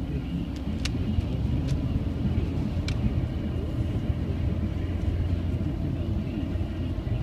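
A car's steady road and engine rumble heard from inside the cabin while driving, with a few sharp clicks in the first three seconds.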